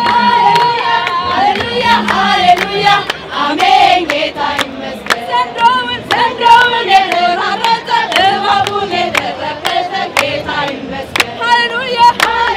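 A group of women singing together, keeping time with sharp hand claps.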